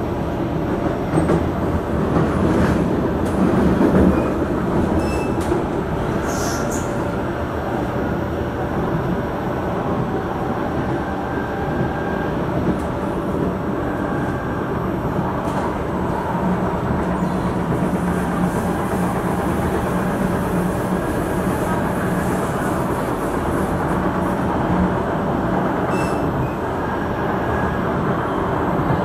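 Steady running noise of a Singapore MRT train heard from inside the car, a rumble of wheels on rail and traction motors. A brief high squeal comes about six seconds in.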